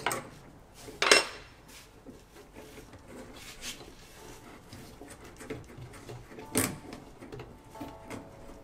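Clicks, clacks and rustling from wiring being handled and plug connectors being fitted behind a boat's gauge panel, with three sharper clacks: one at the start, one about a second in, and one near the two-thirds mark.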